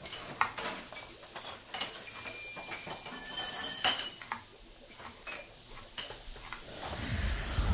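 Light, scattered clinks and taps of glass, then a rising whoosh near the end.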